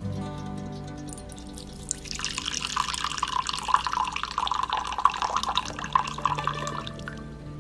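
Coffee poured from a pot into a porcelain cup: a splashing stream that starts about two seconds in and tapers off near the end, over soft background music.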